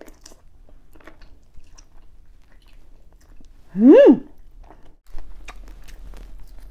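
Close-up eating sounds: wet chewing, biting and lip smacks as a person eats boiled octopus tentacle and crab leg meat. About four seconds in comes a loud closed-mouth "mmm" that rises, then falls, in pitch.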